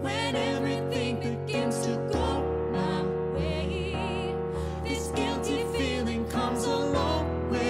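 A woman and a man singing a slow ballad together in harmony over piano accompaniment, their held notes wavering with vibrato.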